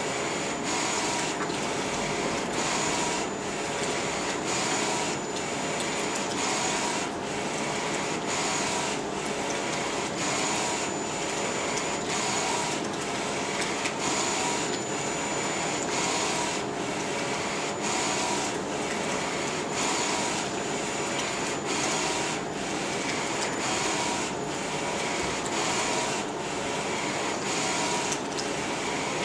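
Flatbed direct-to-garment T-shirt printer running, its print-head carriage shuttling back and forth about once a second over a steady machine hum, with a high whine that comes and goes with each pass.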